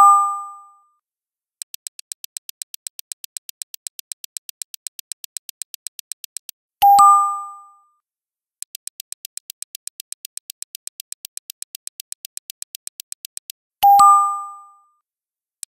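Quiz countdown timer ticking fast and evenly, about five ticks a second, broken three times by a bright two-note chime that rings out and fades over about a second as each correct answer is revealed. The chime comes at the start, about seven seconds in and about fourteen seconds in, and the ticking resumes shortly after each one.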